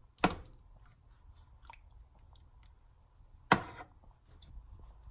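Wooden spoon stirring and turning chicken breasts in a thick marinade in an enamel roasting pan, with faint wet squishing and small ticks. Two sharp knocks stand out, one just after the start and one about three and a half seconds in.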